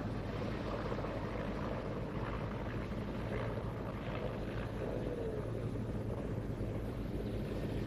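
Military transport helicopters flying past at a distance: a steady whir of rotors and engines that holds at an even level.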